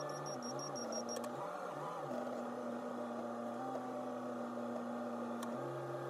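Backhoe loader's diesel engine running steadily, heard from the operator's cab, with low droning tones that shift in pitch a few times and a couple of faint clicks.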